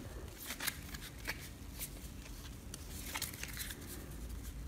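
A deck of Lenormand Fairy Tale cards being handled: faint, irregular paper clicks and rustles as the cards are fanned out and then gathered back into a stack.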